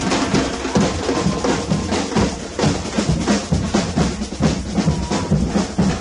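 Marching drums, bass and snare, beaten by the drummers of a passing procession in a fast, steady beat.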